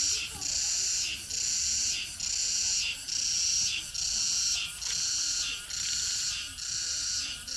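High-pitched insect buzzing in a steady, even rhythm of long pulses, a little over one a second, each separated by a short break.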